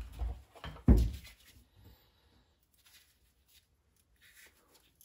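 Hands handling a stripped wire, butt connectors and crimping pliers: a few short clicks and knocks, the loudest a sharp knock about a second in, then faint small ticks.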